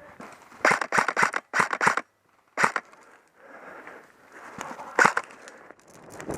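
Airsoft gunfire: a quick string of about seven sharp cracks about a second in, a single crack near the middle, and one loud crack near the end, over faint rustling.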